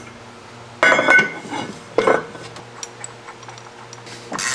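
Metal parts of a snowmobile's secondary clutch clinking and ringing as they are handled and fitted back onto the shaft by hand: a few separate clinks, then a short scrape near the end.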